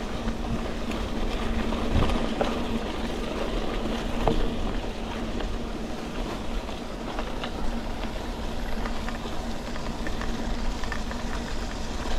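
Road noise inside a moving car: a steady rumble of tyres and engine with a low hum, broken by scattered knocks and rattles.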